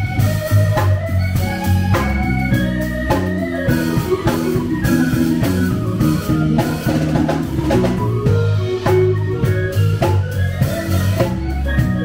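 Band music: an organ playing chords and a moving melody over a steady drum-kit beat.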